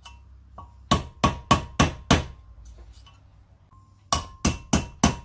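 Copper hammer tapping a small punch to drive a wheel bearing's outer race out of a Land Rover Defender hub. There are two runs of about five quick, light, ringing metal taps, roughly four a second, with a pause between them, working the race out evenly.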